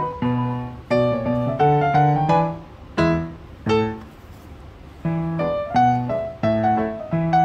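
Background piano music: a slow melody of single struck notes that ring and fade, thinning out briefly about four seconds in before the melody resumes.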